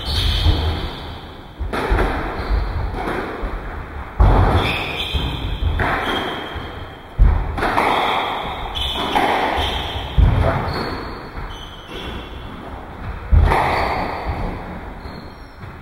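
Squash rally: the rubber ball cracking off rackets and the front wall, a sharp hit every one to three seconds, each one echoing around the enclosed court.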